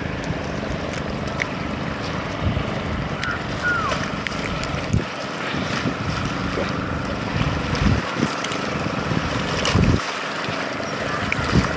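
Wind buffeting the microphone over a low steady hum, with several dull thumps along the way.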